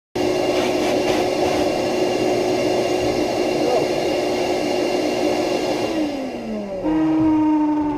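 Electric power tool motor whirring at a steady pitch; about six seconds in it winds down, falling in pitch, and a steady, lower-pitched whir starts up just before the end.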